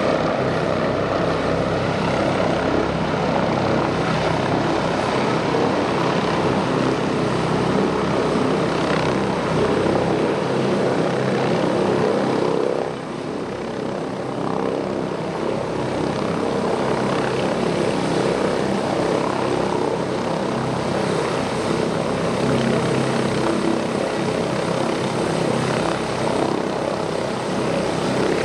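Airbus H145 twin-turboshaft helicopter hovering low and setting down, its main rotor and Fenestron tail rotor running with a steady, continuous rotor beat and engine noise. The level drops slightly about 13 seconds in, then holds steady again.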